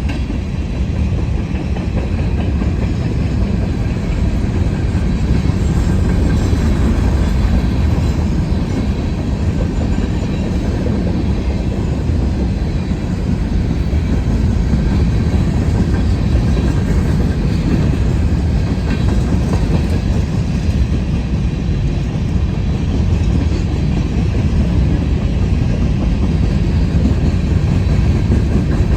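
Freight train's covered grain hopper cars rolling past: a loud, steady rumble of steel wheels on the rails.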